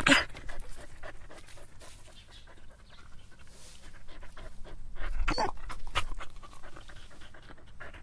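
A dog panting in quick, uneven breaths, with louder breaths at the start and about five seconds in.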